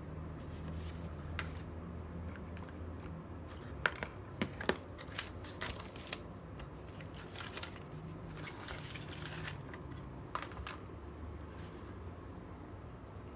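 Handling noises from unpacking: scattered sharp clicks and short rustles of packaging, with a cluster of louder clicks a few seconds in and a couple more near the end, over a steady low hum.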